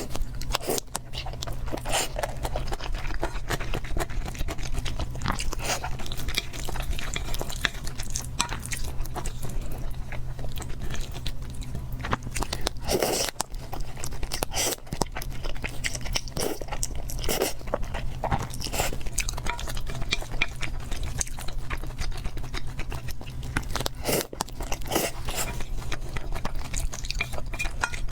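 A person biting and chewing cake close to the microphone, with many short wet mouth clicks at irregular intervals over a steady low hum.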